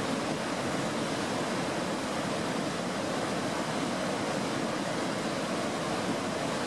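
Merced River whitewater rushing over granite rapids: a steady, unbroken roar of water.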